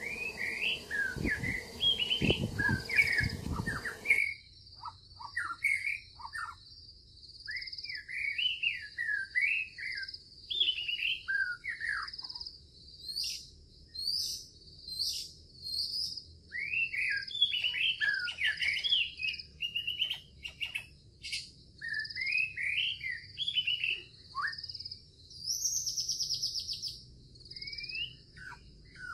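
Songbirds chirping and calling in many short, quick phrases over a steady high-pitched hum, with a buzzy trill near the end. A low background sound stops suddenly about four seconds in.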